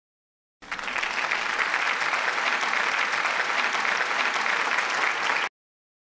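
Crowd applauding: many dense hand claps at an even level, starting about half a second in and cutting off abruptly near the end, like an edited-in applause sound effect.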